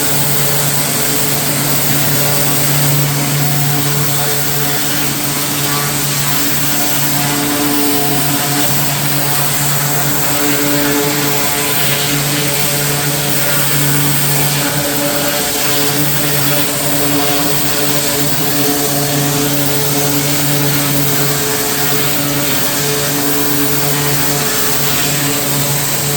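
Small gas engine running steadily at a constant speed, with a loud hiss of rushing air or spray over its hum.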